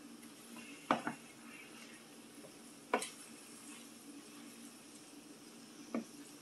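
A utensil knocking against a cooking pan a few times: two close clinks about a second in, one at about three seconds and one near six seconds, over a low steady hum.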